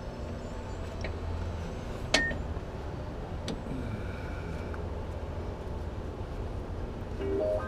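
Hand tools on steel suspension parts: a few sharp metallic clinks while bolting in a lower control arm, the loudest about two seconds in, over a steady low hum.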